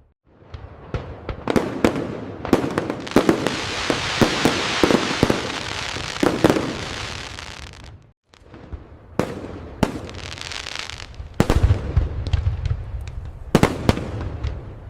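Fireworks display: many sharp bangs with dense crackling between them, deep booms in the second half, and a short break about eight seconds in.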